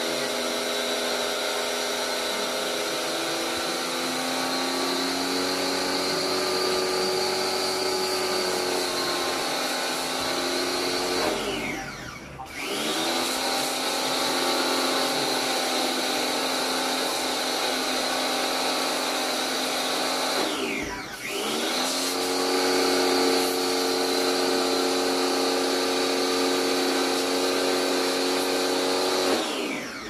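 Electric pressure washer motor running steadily as the panel of a window-type air conditioner is sprayed. Twice it briefly winds down and spins back up, about a third and two-thirds of the way through, and it cuts off at the very end.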